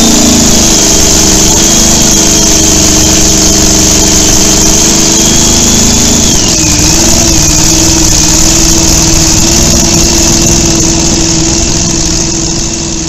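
Large engine of a homemade chopper motorcycle idling steadily, its pitch dipping briefly about six seconds in and then settling. A faint whine rides over it.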